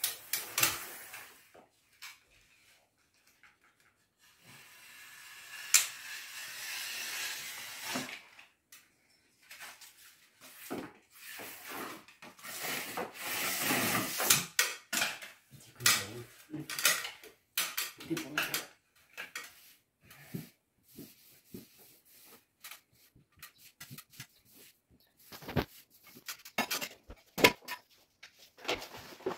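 Freshly pasted wallpaper being worked onto the wall: a plastic smoothing spatula rubs and scrapes over the paper in two longer passes, with scattered clicks and taps in between.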